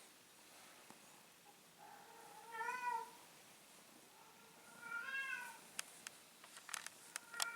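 A cat meowing: two drawn-out meows about two seconds apart, then a few sharp clicks near the end.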